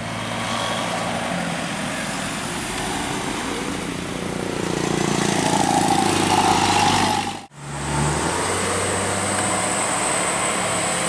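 A bus engine running with road noise, growing louder about five to seven seconds in as it draws close. An abrupt cut near the end brings a steady engine hum with a thin high steady tone above it.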